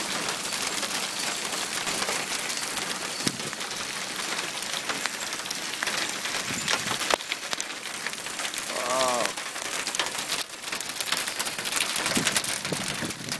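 Hail and rain pelting down outdoors: a steady dense hiss dotted with many small sharp hits.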